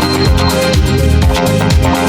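Loud electronic dance music with a steady, driving beat.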